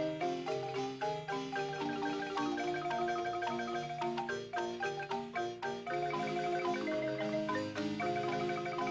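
Marimba playing a lively tune: many quick struck wooden-bar notes over a moving bass line, with chords.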